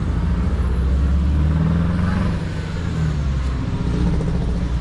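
A motor engine running close by, its low hum swelling about a second and a half in and easing off after about three seconds.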